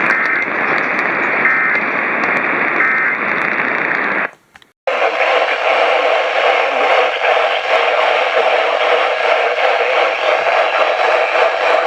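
Heavy radio static carrying three short Emergency Alert System end-of-message data bursts, the warbling digital tones that close an EAS activation. Just past four seconds in, the signal cuts out for about half a second, then comes back as a thinner, hissier static.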